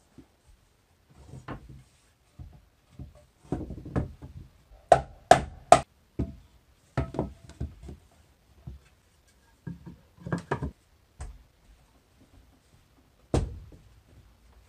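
Irregular knocks and taps of hand work with tools on wood. Three sharp, ringing strikes come in quick succession about five seconds in, and another loud knock comes near the end.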